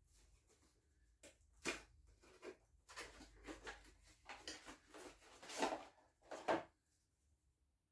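Irregular knocks, clicks and rustles of parts and packaging being handled on a workbench, loudest in two knocks near the end.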